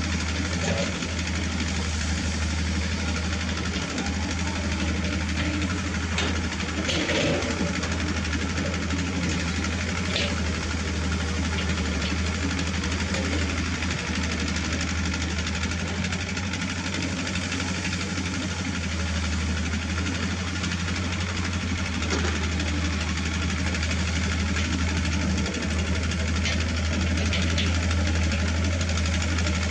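Heavy-equipment diesel engine running steadily with a deep, even hum, with a few faint knocks.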